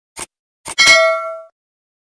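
Subscribe-button animation sound effect: two short clicks, then a bright bell-like ding a little under a second in that rings out for about half a second.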